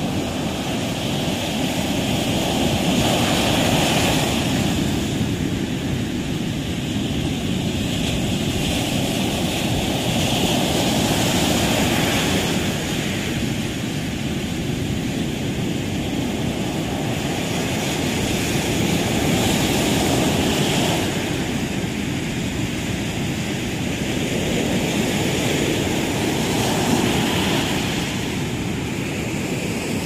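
Sea surf on a sandy beach: waves breaking and washing up the shore in a steady noise that swells about every seven or eight seconds.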